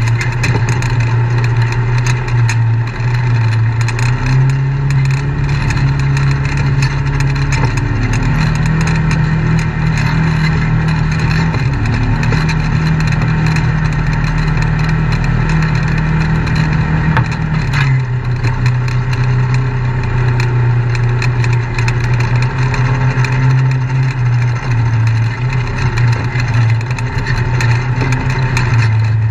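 Side-by-side UTV engine running at low trail speed, its pitch stepping up about 4 and 8 seconds in and dropping back about 18 seconds in as the throttle changes.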